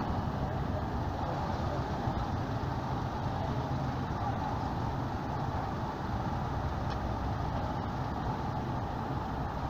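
Diesel engine of a heavily loaded truck running steadily at low speed as it creeps up a ferry's loading ramp.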